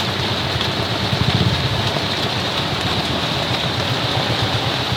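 Steady rain hiss, with a low pulsing engine rumble underneath.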